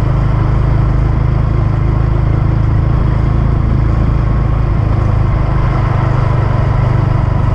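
Motorcycle engine running steadily while the bike is ridden, heard from the rider's seat, an even hum with no change in engine speed.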